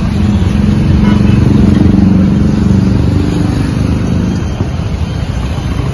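Road traffic: a motor vehicle's engine passes close by, growing louder for about two seconds and then fading, over a steady low rumble of traffic.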